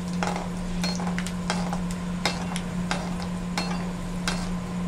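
Peanuts frying in oil in a kadai, stirred with a spatula: a light sizzle with irregular clicks and scrapes of the spatula and nuts against the pan, over a steady low hum. The nuts are being fried on a low flame until crisp.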